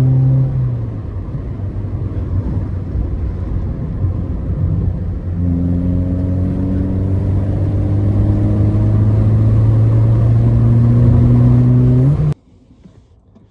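Ford Fiesta ST150's 2.0-litre four-cylinder engine pulling on the road: the revs drop about half a second in, then climb slowly and steadily from about five seconds on. The sound cuts off suddenly near the end.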